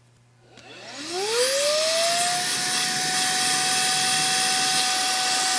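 Brigii M1 handheld mini vacuum switched on: its small motor spins up with a rising whine, then runs at a steady high whine over a rush of air.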